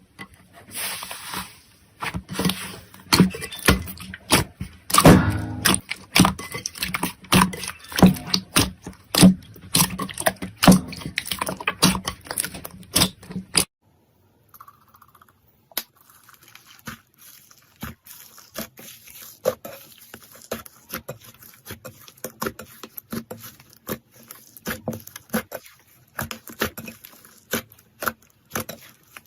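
Slime being squeezed and poked by hand, giving dense, irregular crackles and pops. About halfway through it cuts off briefly, then a second slime clip follows with finer, quieter crackling.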